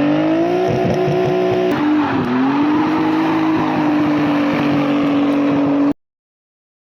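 Nissan 300ZX twin-turbo V6 held at high revs during a burnout, tyres spinning. The pitch stays steady apart from a brief dip about two seconds in, and the sound cuts off abruptly near the end.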